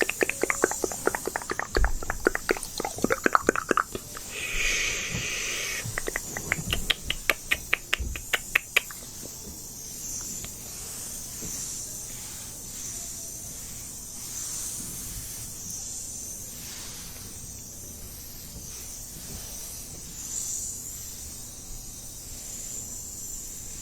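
Close-miked ASMR mouth sounds: rapid wet tongue and mouth clicks at about five a second, broken by a hiss of about two seconds. About nine seconds in the clicking stops and gives way to soft, steady breathy hissing.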